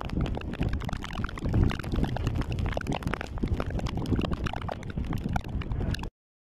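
Heavy rain pouring down: a dense crackle of drops over a low rumble of wind on the microphone. It stops abruptly just before the end.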